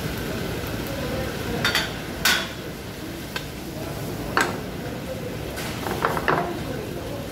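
Metal spoon clinking and scraping against a frying pan as a stir-fry is tossed and stirred, about six sharp clanks with the loudest a little past two seconds and past four seconds in. A steady low rush runs underneath.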